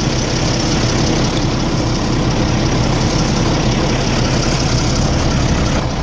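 Scania L94IB city bus's diesel engine idling steadily.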